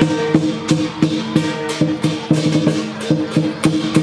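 Lion dance percussion: a big lion dance drum pounded together with cymbals, in a driving, uneven rhythm of about three strokes a second, each stroke carrying a ringing drum tone under a bright cymbal crash.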